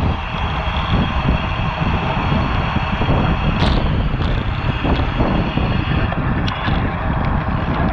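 Wind buffeting a bike-mounted action camera at racing speed, a steady rushing rumble mixed with tyre and road noise, with a few sharp clicks, the clearest about halfway through.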